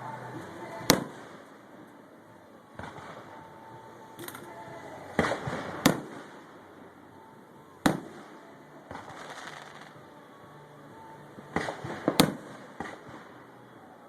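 Fireworks display: aerial shells bursting with sharp bangs, one about a second in, a cluster of several around the middle, and another cluster near the end, with crackling between the bangs.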